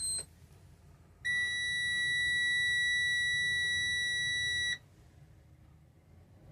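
Freightliner Cascadia dashboard warning buzzer sounding as the ignition is switched on: a brief higher chirp at the very start, then one steady high-pitched beep lasting about three and a half seconds that cuts off sharply.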